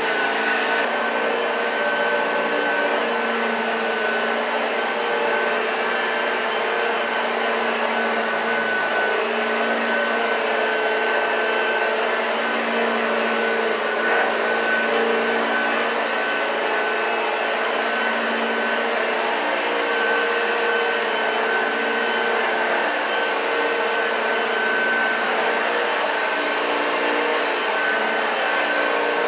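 1986 Hoover Junior U1206 upright vacuum cleaner running steadily: a constant motor whine over the rush of air.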